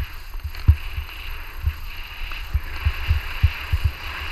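Skis gliding over snow with a steady hiss, broken by irregular dull low thumps, about one or two a second.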